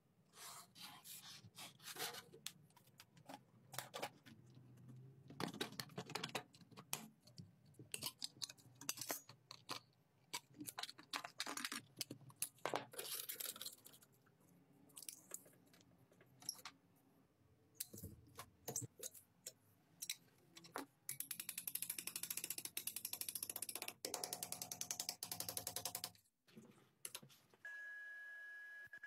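Small workshop sounds of thin sheet steel being worked by hand into a box: a run of quiet clicks, taps and scrapes as it is marked, bent and handled. Late on comes a longer stretch of scratchy noise, and near the end a steady high tone begins.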